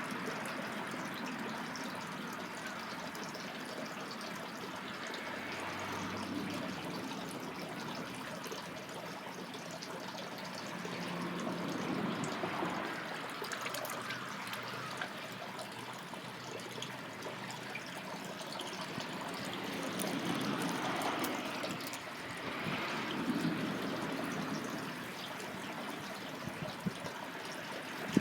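Water running in a swollen waterway: a steady trickling wash that swells a little now and then.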